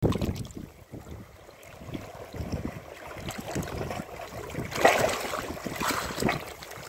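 Shallow seawater lapping and washing over shoreline rocks, irregular, with louder splashes about five and six seconds in.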